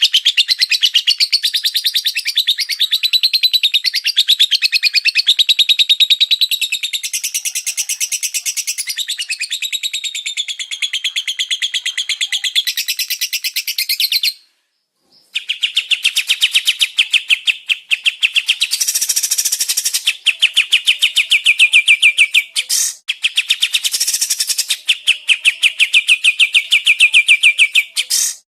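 A small songbird singing a fast, continuous chattering song of rapidly repeated high notes, breaking off briefly about halfway through and again just before the end.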